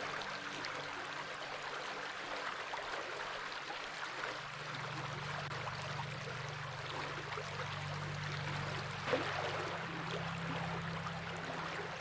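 Stream water flowing and splashing steadily, with a low steady hum underneath that grows stronger about four seconds in.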